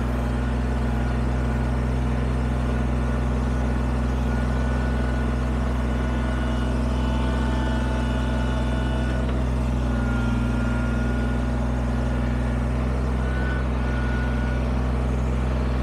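Kubota BX23S sub-compact tractor's three-cylinder diesel engine running steadily at an even pitch while its front loader pushes dirt.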